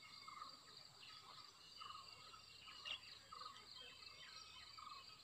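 Near-silent forest ambience: faint insect trills and scattered bird chirps over a quiet hiss.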